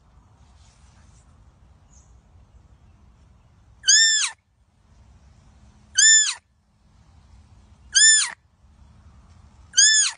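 Deer fawn bleating: four short, high-pitched calls about two seconds apart, each rising and then falling in pitch.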